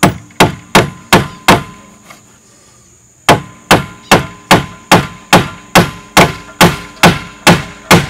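Claw hammer striking wood in a steady rhythm of about two and a half blows a second: five blows, a pause of nearly two seconds, then an unbroken run of blows to the end.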